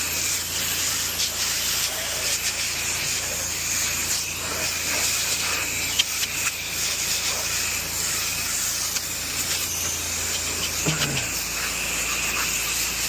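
Pressure-washing spray hissing steadily against the house, with the washer's low motor hum running underneath.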